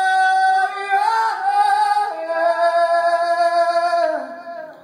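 Male rock singer holding long sung notes into a microphone with the band barely audible beneath him. The second held note slides down slightly and fades out near the end.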